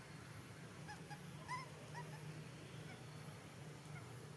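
A young long-tailed macaque giving a string of short, high squeaks, about six, with the loudest about a second and a half in.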